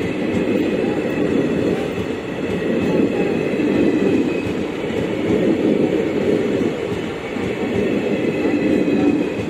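Passenger train coaches rolling past on the rails: a steady rumble of wheels on track that swells and dips every second or two as the cars go by.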